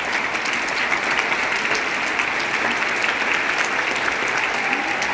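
Audience applauding steadily, many hands clapping together at an even level.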